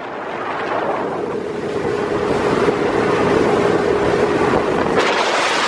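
Small boat's motor running at speed across open water: a steady engine hum under the rush of wind on the microphone and water off the hull. The wind and water noise gets louder about five seconds in.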